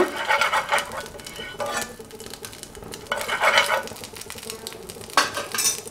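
Steel spoon scraping and swirling around a nonstick frying pan, spreading oil over the pan, with small clinks of metal on the pan and a louder scrape near the end.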